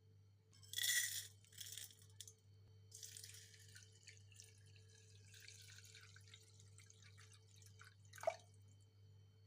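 Kitchen sounds of liquid being poured: two short loud rustling bursts about a second in, then a stretch of faint pouring and splashing, and a single sharp glassy clink near the end.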